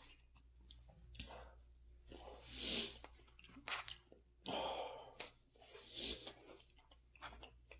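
A person chewing food close to the microphone: irregular wet mouth and chewing sounds, with a couple of louder swells.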